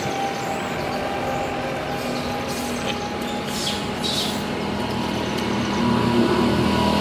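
Motor-vehicle traffic running steadily, with a vehicle engine hum that builds and grows louder toward the end; a few short high chirps sound around the middle.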